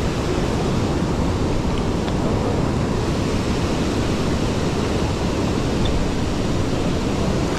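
Steady rush of the Feather River's current pouring over a concrete weir and running past the bank.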